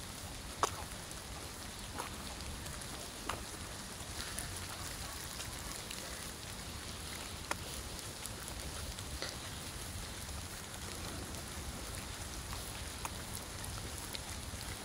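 Steady rain falling, an even hiss, with scattered sharp ticks of single drops landing close by.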